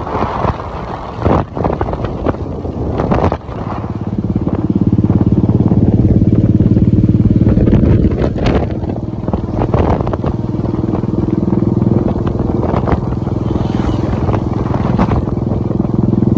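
Royal Enfield motorcycle engine running steadily at road speed, its low, even hum coming in strongly about four seconds in. Wind rushes and buffets over the microphone throughout, most gustily in the first few seconds.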